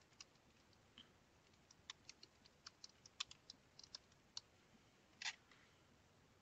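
Faint typing on a computer keyboard: a quick run of soft key clicks for about four seconds, then one louder click about five seconds in.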